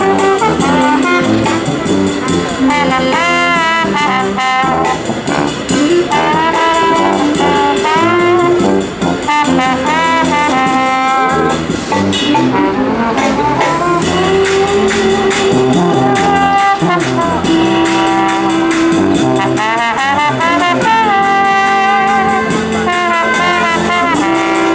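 Jazz music with brass instruments playing a melody over a steady beat.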